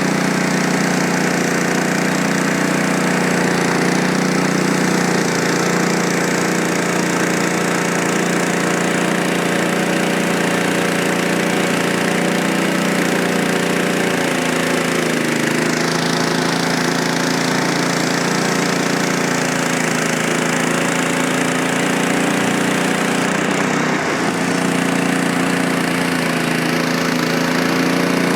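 Frontier OS23 portable bandsaw sawmill running, its small engine steady under load as the band blade makes a light leveling skim cut through a log. The engine note shifts about halfway through.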